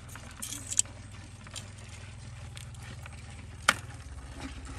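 Metal tongs scraping and clicking against stones and dirt, with a short scrape early on and one sharp click about three-quarters of the way through. A steady low motor hum runs underneath.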